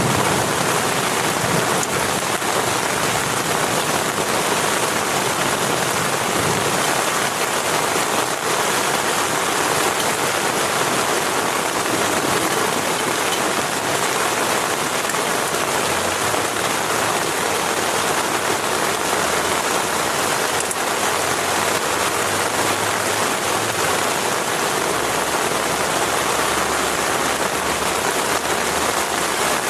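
Heavy rain falling steadily on a tent, an even unbroken hiss.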